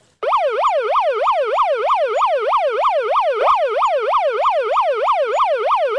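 Electronic toy vehicle siren sounding a fast up-and-down wail of about three sweeps a second. It starts just after the beginning.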